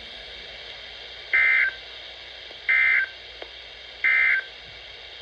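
Emergency Alert System end-of-message signal: three short bursts of SAME digital data, each about a third of a second long and about a second and a third apart, over a faint steady hiss. The bursts mark the end of the alert.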